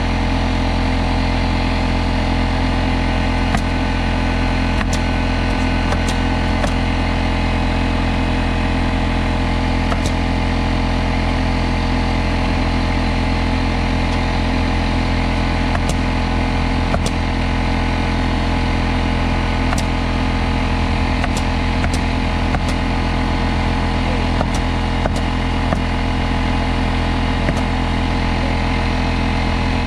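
An engine running steadily at an even speed, with scattered sharp clicks or taps over it.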